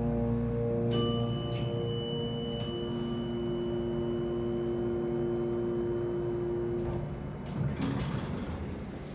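Elevator arrival chime: a single bright ding about a second in, ringing out slowly over several seconds above a steady low hum. A short noisy sound follows near the end.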